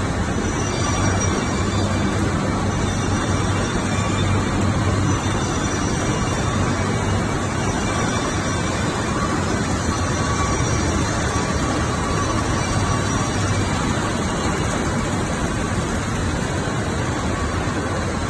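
Flooring UV coating line running: a steady, unbroken machine noise with a low hum underneath, from the conveyors, curing unit and sander working together.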